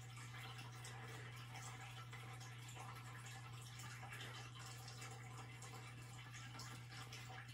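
Quiet room tone: a steady low hum under a faint hiss, with a few soft ticks.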